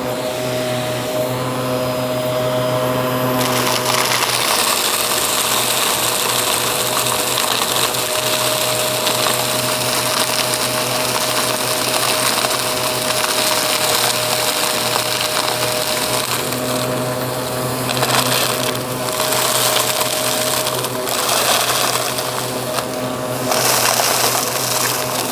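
Aspiron vacuum cleaner running steadily with a constant motor hum, while crunchy debris crackles and rattles as it is sucked up, the crackle swelling and easing.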